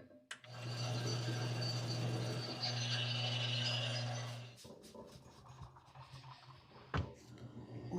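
Power tool motor running with a steady hum and grinding as it cuts a cured bowling-ball plug down flush, stopping after about four seconds. Quieter scraping follows, with a sharp click near the end.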